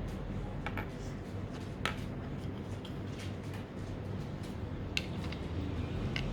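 A few sharp small plastic clicks and taps from handling the Redmi AirDots 2 earbuds and their charging case, scattered over a steady low background rumble.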